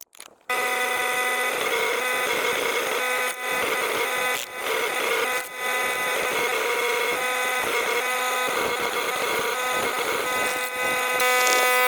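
A steady mechanical whine at a constant pitch, starting abruptly and dipping briefly a few times.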